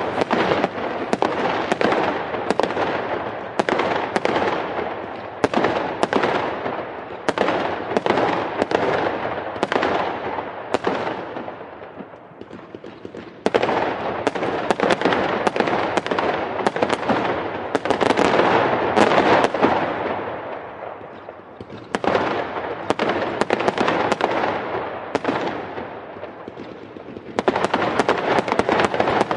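Fireworks going off in rapid barrages, a dense run of bangs and crackles. It comes in waves that tail off and then start again loud about 13 seconds in, about 22 seconds in and near the end.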